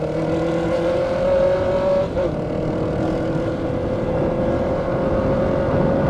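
Honda CBR650F inline-four with a straight-pipe exhaust (no muffler) running hard at high revs, its note climbing steadily. It breaks off briefly about two seconds in, as at a quick gear change, then carries on at a high, steady pitch that keeps rising slowly.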